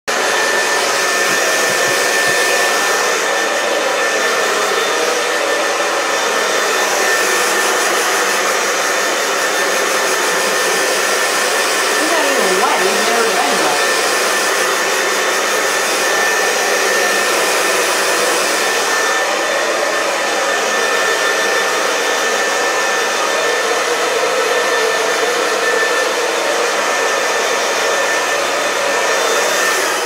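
Handheld hair dryer blowing steadily: an even rush of air with a thin steady whine running through it.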